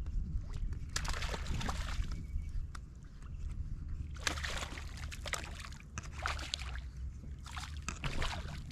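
Water sloshing and splashing in irregular swishes, about four of them, over a steady low rumble, as someone moves through water.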